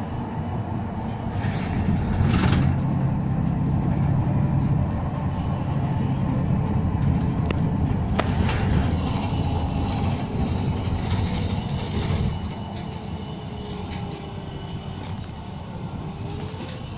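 Moving city bus heard from inside: a low engine and drivetrain hum with road noise and a few sharp rattles. It grows louder about two seconds in as the bus pulls, then drops a step about twelve seconds in as it eases off.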